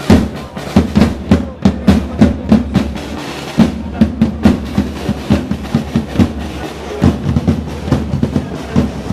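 Marching drums played by procession drummers, beating a steady march rhythm of about four strokes a second, with a short break about two-thirds of the way through.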